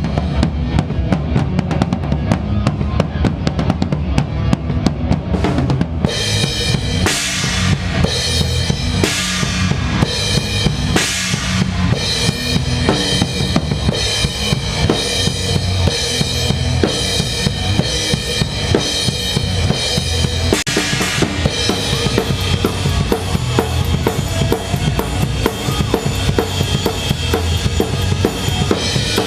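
Rock drum kit played live and close up in a band's song: a driving kick-and-snare beat, with loud cymbal crashes breaking in several times from about six seconds in, over the rest of the band.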